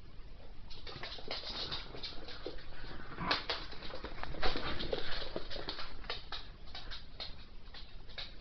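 Two Cardigan Welsh corgis play-fighting: quick scuffling and rustling with short dog noises, starting about a second in and busiest in the middle.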